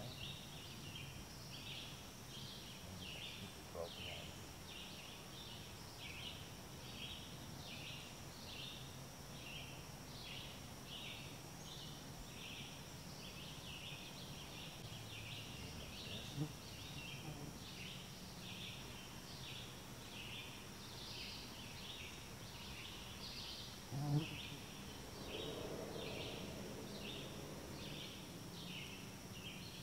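Faint outdoor chorus of short, high chirps repeating several times a second, over a steady thin high-pitched tone and a low hum. A few soft knocks break in, the sharpest about 24 seconds in.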